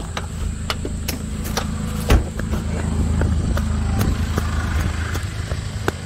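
Off-road 4WD engine running at low speed over a rough dirt track, a steady low hum. Scattered clicks and knocks come through it, with a louder knock about two seconds in.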